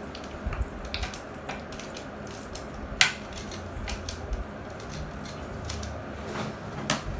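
Plastic Pyraminx puzzles being twisted by hand: irregular clicks and clacks of the pieces turning, with a sharper clack about three seconds in and another near the end.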